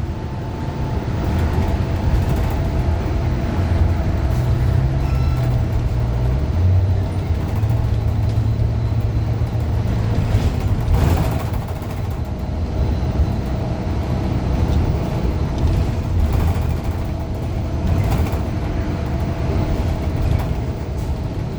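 Interior sound of a Gillig low-floor bus under way, its Cummins Westport ISL G natural-gas engine and Allison B400R transmission giving a steady low drone with a steady whine above it, the pitch stepping up a few times in the first half; the transmission is one the uploader calls messed up. A brief rushing sound comes about halfway through.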